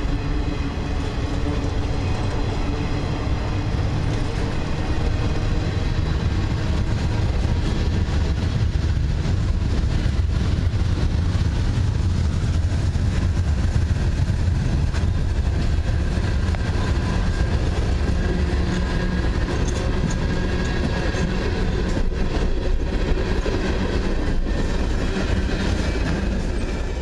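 Freight train of a mixed manifest rolling steadily past, its cars' wheels running on the rails in a continuous rumble.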